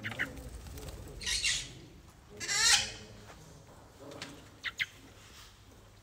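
Small parrots giving short squawks at a water fountain, squabbling over it. The loudest and longest squawk comes about two and a half seconds in, and there are shorter calls before and after it.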